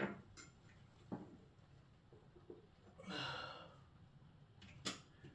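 Faint handling of a wall-mounted radiator bracket: a sharp knock, another knock about a second later, a short rushing scrape about three seconds in, and a sharp click near the end.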